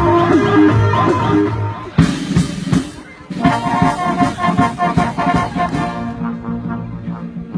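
Music with brass instruments. It cuts abruptly to different music about two seconds in and changes again about six seconds in.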